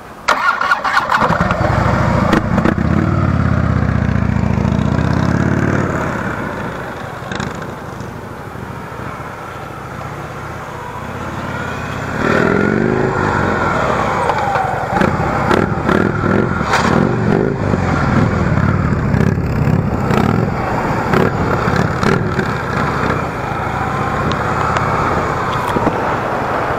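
V-twin police touring motorcycle pulling away and accelerating, loud for the first few seconds and then fading as it rides off. About twelve seconds in, the engine revs up again and stays loud as the bike comes back around the course.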